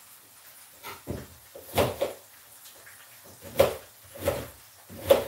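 Knife chopping an onion on a plastic chopping board: separate knocks at uneven intervals, about seven of them, the strongest about two seconds in, about three and a half seconds in and near the end.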